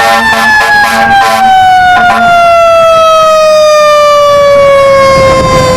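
Fire engine siren: one long wail sliding slowly down in pitch, with a rapid pulsing over it for the first second and a half.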